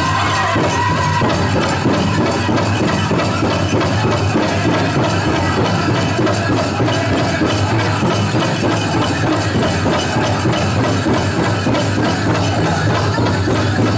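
Powwow drum song: the big drum beaten in a steady, fast rhythm, with the singers' voices trailing off about a second in. The dancers' ankle bells jingle along with the beat.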